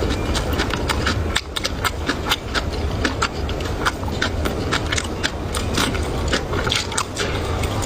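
Close-miked chewing and eating mouth sounds: many short wet clicks and smacks, a few per second, over a steady low hum.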